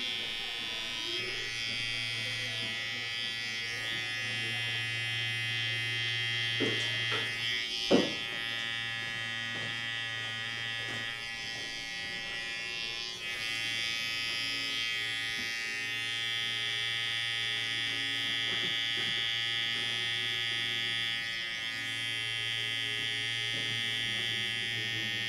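Electric hair clipper buzzing steadily close to the head, its tone dipping briefly a couple of times as it moves. A few light knocks about a quarter of the way in, the loudest a sharp click.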